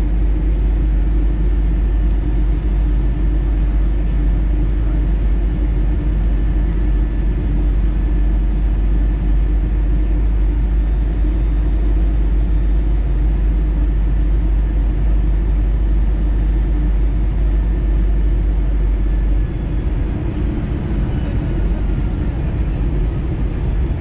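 Steady cabin noise of an Airbus A320 in flight on its way in to land: a deep engine and airflow rumble heard from inside the cabin. The deepest part of the rumble drops a little about twenty seconds in.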